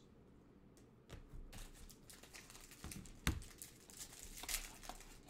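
Trading cards and their plastic pack wrappers and sleeves being handled: soft crinkling and small clicks, with one sharper click about three seconds in.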